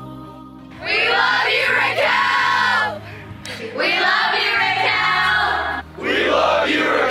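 Groups of teenagers shouting together in unison three times, each shout lasting about two seconds, over soft background music with sustained low notes.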